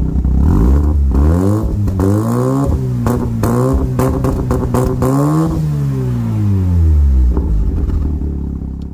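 Mazda RX-7's rotary engine revved through a dual-tip aftermarket exhaust. The pitch climbs and drops back, then climbs again and is held for a couple of seconds before falling back to idle, with sharp exhaust pops while the revs are up.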